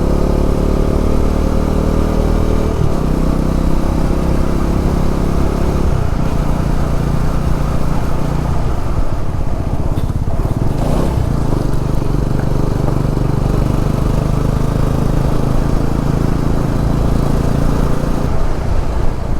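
Motorcycle engine running under way, heard from the rider's seat, its note changing a couple of times in the first six seconds and then holding steady.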